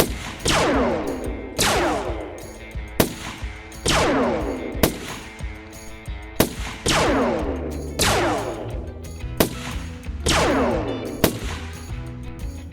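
A string of sharp blaster-shot sound effects, roughly one a second, most trailing a falling whine, over background music with a steady bass line.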